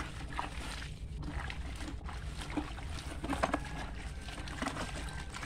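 Bare hands scrubbing the inside of a plastic bucket and sloshing water around it to rinse out white paint, in irregular strokes.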